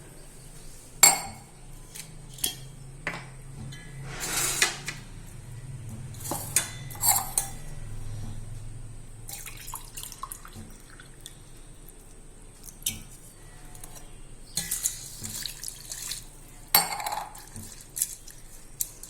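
Water poured from a tumbler into a cooking pot holding herbs, in a few pours of a second or so each. Between the pours come clinks and knocks of the vessels, the loudest about a second in.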